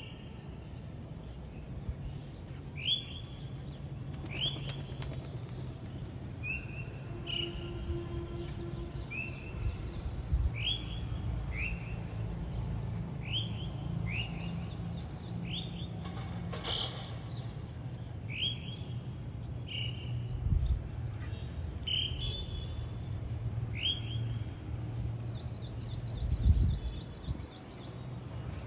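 A small bird repeats short, falling chirps about every second and a half, with a quick trill near the end, over a low steady rumble and a steady high hiss.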